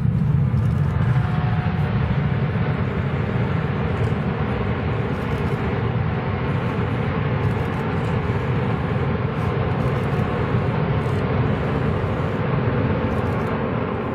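Military jet aircraft engines running with a loud, steady, deep rumble that eases slightly near the end.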